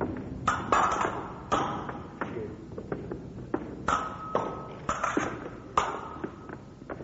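Steel fencing blades striking one another in an irregular series of about six sharp hits, some leaving a brief metallic ring.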